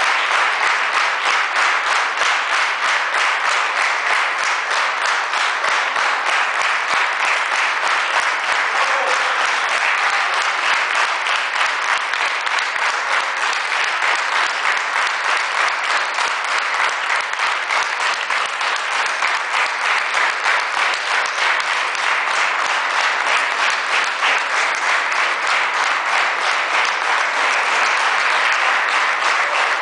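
A concert audience applauding steadily and loudly, a dense continuous clapping from a large crowd.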